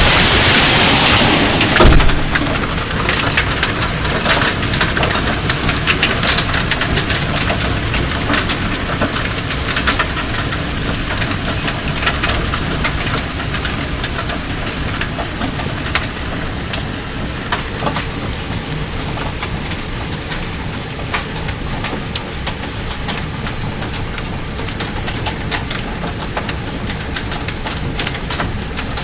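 Hail falling with rain, hailstones striking surfaces as dense sharp ticks over a steady hiss. It is loudest in the first couple of seconds, then eases off gradually.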